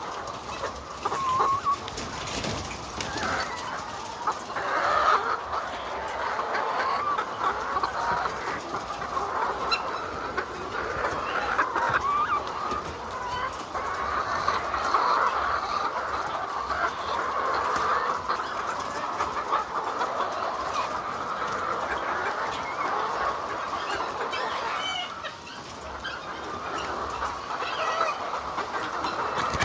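A large flock of chickens clucking and chattering continuously, many birds calling over one another.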